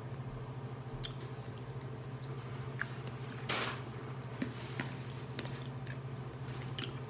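A person eating macaroni and cheese with a fork: soft chewing and wet mouth sounds with a few scattered clicks, over a steady low hum. A short louder noise comes about three and a half seconds in.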